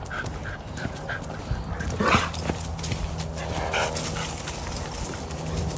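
An excited dog on a leash, passing another dog, calls out: one short, sharp yelp about two seconds in, then a softer, brief whimper near four seconds.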